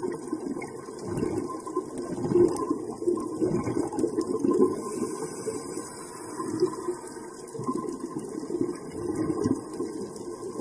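Underwater sound on a coral reef: a steady, muffled rush of water that swells and ebbs irregularly, with faint scattered clicks.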